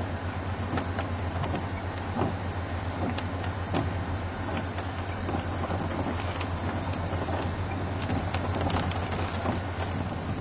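Steady rushing storm wind with a low, even hum underneath and scattered light ticks throughout.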